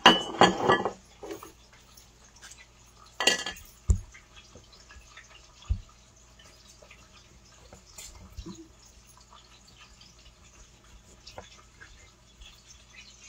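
Kitchen utensils clattering, with a few sharp knocks on a wooden cutting board in the first six seconds, then a knife quietly slicing through a ripe tomato on the board with small clicks.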